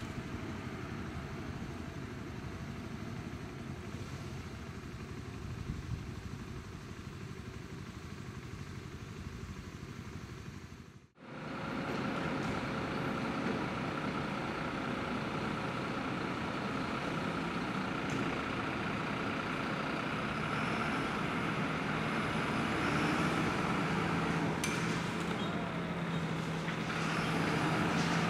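Street traffic noise as a fire service truck drives off, cut off sharply about eleven seconds in. Then the diesel engine of a Mercedes-Benz Atego fire engine running as it rolls out of the station bay, growing louder toward the end as it approaches.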